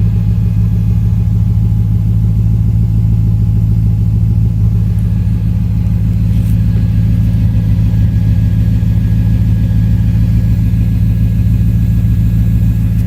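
Car engine idling roughly with a steady low running sound and an uneven pulsing; it is not smooth, which the owner takes for a possible misfire.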